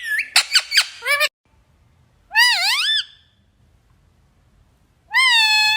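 Pet parrot calling: a quick run of short chirps and squeaks in the first second or so, then two longer high calls, one wavering in pitch about two and a half seconds in and a steadier one near the end.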